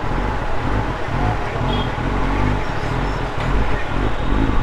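Kawasaki ZX-10R's inline-four engine running at a steady cruise, under a steady rush of wind and road noise.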